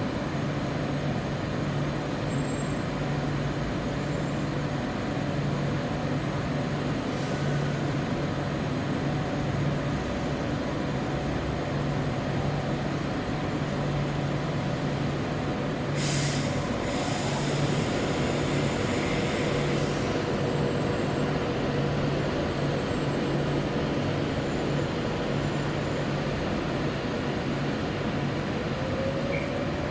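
A train at the station running steadily with a low, pulsing hum and rumble. Just past the middle, a hiss lasts about four seconds.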